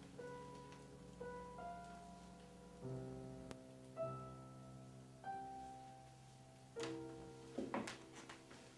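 Quiet, slow piano music: single notes and soft chords, a new one about every second, each left to ring. A few faint clicks sound near the end.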